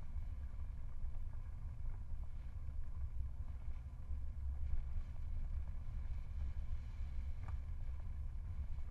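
Steady low wind rumble on the microphone of a camera riding on a moving bicycle, with a faint tick about seven and a half seconds in.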